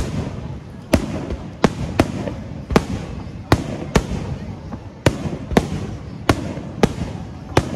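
Aerial firework shells bursting in quick succession, about a dozen sharp bangs at one or two a second, each with a short echoing tail. Under them runs a steady hiss of heavy rain.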